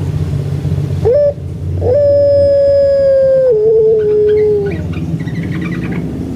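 Puter pelung (domestic ringneck dove, Streptopelia risoria) giving its long drawn call. A short rising note comes about a second in, then one long steady note that steps down to a lower pitch and stops a little before five seconds.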